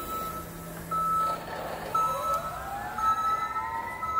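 Forklift warning beeper sounding about once a second, with a machine whine that rises and then falls in pitch from about two seconds in.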